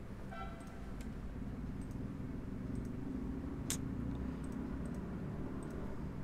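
Computer mouse and keyboard clicks while an order is entered, over a steady low room hum: a few faint ticks, a brief faint tone near the start, and one sharp click a little over halfway through.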